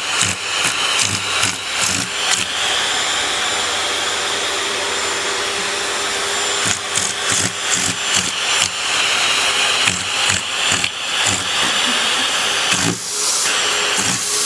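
Vacuum cleaner running with a steady whine, with frequent short knocks and clatter in the first couple of seconds and again through the second half.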